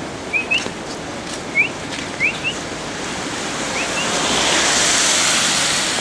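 Steady rush of falling water in a monsoon forest, swelling about four seconds in. Over it, several short rising bird chirps come in quick pairs during the first four seconds.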